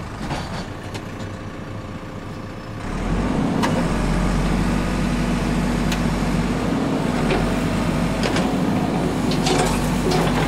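JCB backhoe loader's diesel engine running, rising to a steadier, louder working note about three seconds in as the hydraulics lower the stabiliser legs and work the rear digging arm. A few light clanks sound over it.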